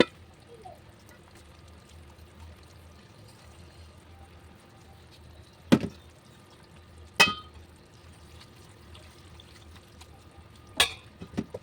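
A few sharp clacks of kitchenware knocking together, about six seconds in, again a second and a half later, and three more close together near the end, over a steady low hum.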